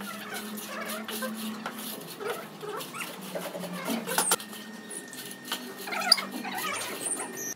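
Wooden straightedge scraping back and forth across wet sand-cement floor screed, with high animal calls over it.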